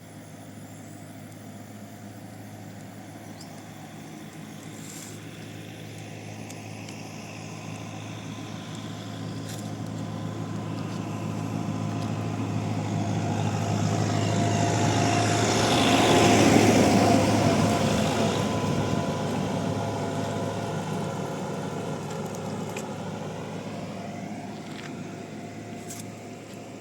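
A motor vehicle passing: its engine and tyre noise grow steadily louder to a peak a little past halfway, then fade away again.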